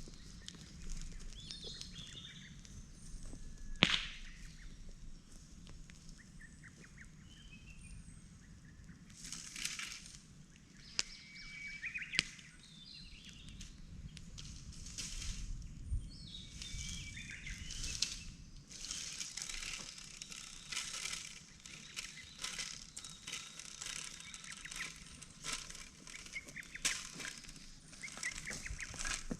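Small birds chirping in woodland, with repeated bursts of rustling noise and a few sharp clicks, one louder crack a few seconds in.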